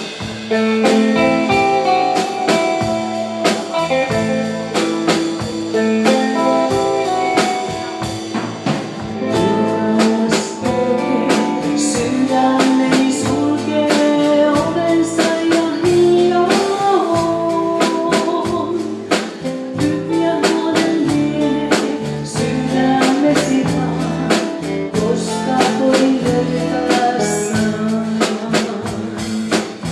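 Live rautalanka band playing through the PA: electric and acoustic guitars, bass guitar and a drum kit keeping a steady beat.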